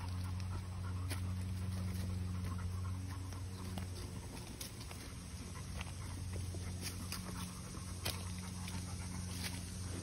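Pit bull panting as it walks on a leash, over a steady low hum, with scattered footsteps on dry leaves and twigs.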